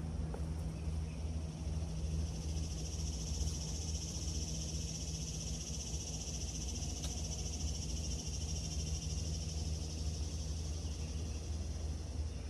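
Insect buzzing, a steady high-pitched drone that starts about two seconds in and holds, over a steady low hum.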